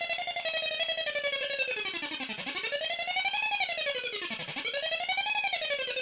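MFOS Weird Sound Generator synth circuit, built without its filter and played through a Deep Blue delay pedal, sounding a buzzy, fluttering tone whose pitch swoops deeply down and back up about every two seconds.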